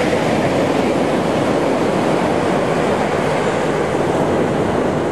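Ocean surf breaking along the shore, a steady rushing noise with no distinct separate waves.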